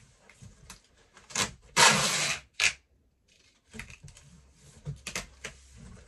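Brown packing tape being pulled off its roll and pressed onto a cardboard box. One loud rasp of tape unrolling comes about two seconds in, with shorter rasps just before and after it and another near the end.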